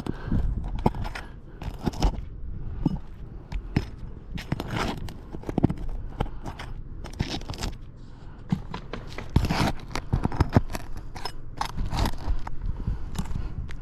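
Irregular scraping and crunching strokes from roof repair work, many short ones in a row.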